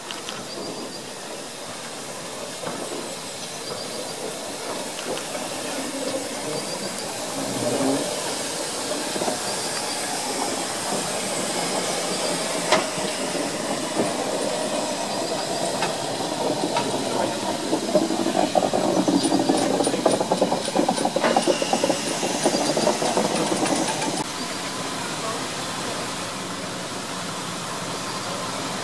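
Two steam tank locomotives, a Hunslet Austerity 0-6-0 saddle tank and a GWR 4575 class 2-6-2 prairie tank, running past with their cylinder drain cocks open: steam hissing over the noise of the engines on the rails. The sound builds as they pass, loudest about 18 to 24 seconds in, then drops suddenly to a lower, steady noise.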